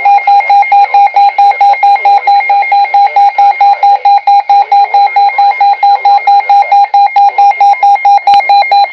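Emergency Alert System alarm tone: a loud, rapid electronic beeping, about five beeps a second on one steady pitch, signalling the start of a weather warning broadcast.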